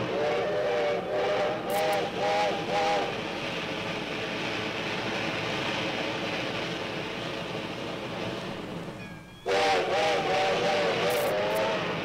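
Steam locomotive chime whistle sounding a chord of several notes in a run of short, wavering blasts, followed by a steady hiss of several seconds. After an abrupt break about nine and a half seconds in, the whistle chord sounds again, longer and wavering.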